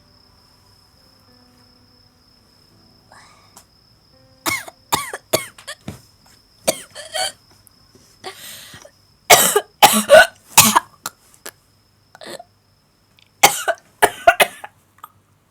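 A person coughing in fits: single coughs starting about four seconds in, then a loud run of coughs in the middle and another short run near the end.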